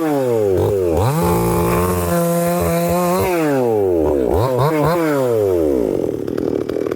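Chainsaw cutting firewood, its engine revving up and down over and over as the throttle is worked, held high for about two seconds midway, then dropping toward idle near the end.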